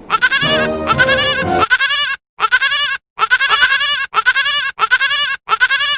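Goat bleating over and over: a rapid string of short, wavering bleats, about two a second, broken by a few brief silences.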